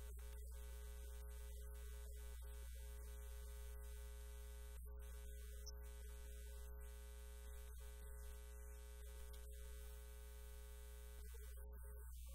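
Steady electrical mains hum with a buzz of many even overtones above it; the sermon's speech is not heard.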